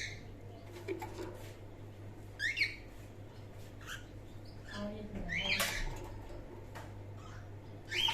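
Cockatiel chicks giving short, squeaky calls that rise in pitch, about three of them spaced a few seconds apart, over a steady low hum.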